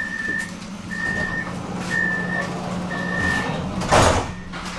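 Tram door-closing warning: four short, high, steady beeps about one a second over the tram's steady low hum, then a loud thump near the end as the doors shut.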